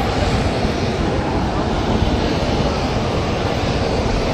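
Loud, steady rotor noise of a military rotorcraft running close by, a dense rush with a fast low pulsing underneath.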